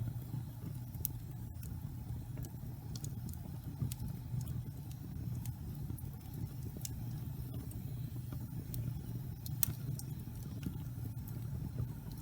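Log fire burning, a steady low rumble of flames with scattered sharp crackles and pops, the loudest pop about nine and a half seconds in.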